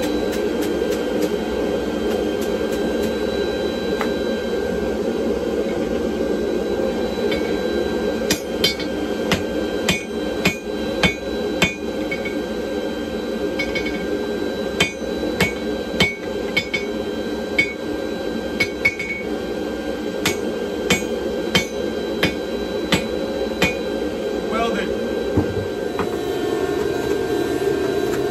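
Hand hammer blows ringing on hot steel and an anvil, irregular at about one to two a second, as a Damascus billet is worked. They start after several seconds and run through most of the rest. Underneath is the steady rushing noise of the forge.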